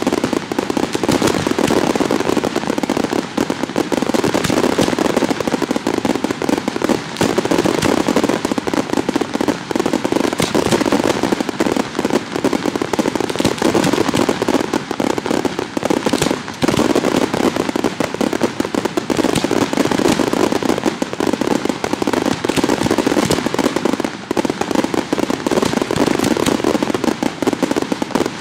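Fireworks going off without a break: a dense, continuous crackle of many rapid small bangs, loud throughout.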